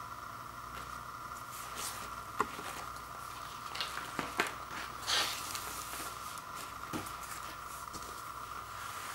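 Vinyl LP records, paper inner sleeves and card artwork being handled and slid against each other: soft rustling with a few sharp clicks around the middle. A steady background hiss runs underneath.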